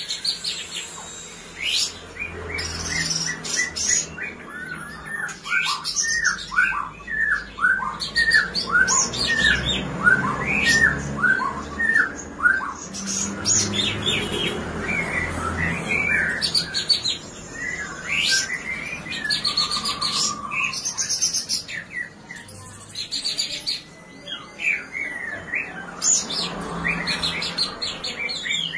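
Caged songbird singing a varied, busy song: quick runs of short downward-sweeping chirps alternating with sharp, high-pitched notes. It is a tutor song ('masteran') of the kind played to train competition songbirds.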